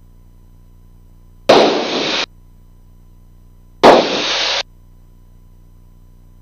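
Two short bursts of radio static hiss in the aircraft's radio audio, each under a second long and about two and a half seconds apart. Each starts with a sharp click and cuts off suddenly, over a faint steady hum.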